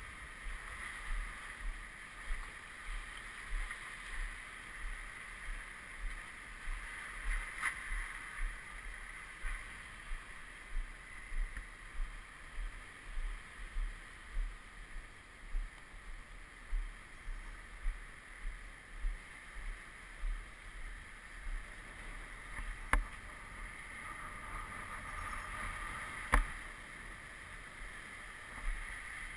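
Steady low thumps, about one and a half a second, over a faint steady hiss, with two sharp clicks near the end.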